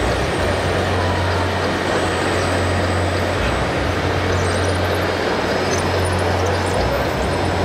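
Steady diesel truck engine sound from the radio-controlled model trucks' sound modules, a low, even drone over the noise of a busy exhibition hall.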